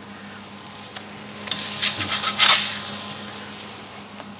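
Smashburger sizzling faintly on a hot griddle plate, with a run of clicks and scraping and a louder swell of sizzle about two seconds in as the burger is lifted off the plate.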